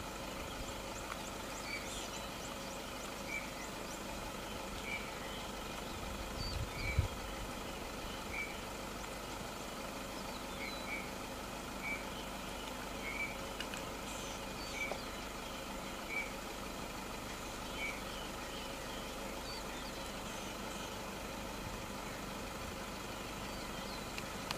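A steady mechanical hum, with a short high chirp repeating every second or two and a single low thump about seven seconds in.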